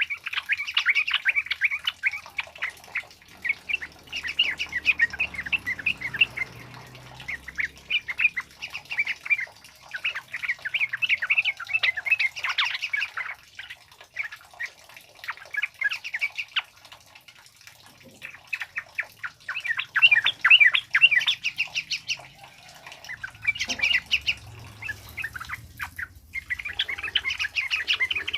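Yellow-vented bulbuls (trucukan) singing in bursts of rapid chattering notes, a phrase of one to two seconds repeated again and again with short gaps.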